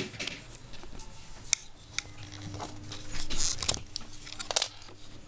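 Handling noise: a few sharp clicks and a short rustling burst, over a faint steady hum.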